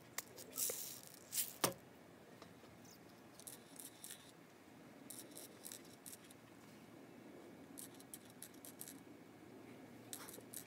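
Faint clicks and rattles of small metal BBs, shaken in a plastic bottle and dropped one at a time into an air pistol magazine. The louder rattles come in the first two seconds, then scattered light ticks.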